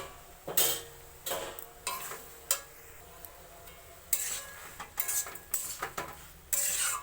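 A metal spoon scrapes and clinks against a cooking pan as a curry is stirred, in irregular strokes with brief ringing.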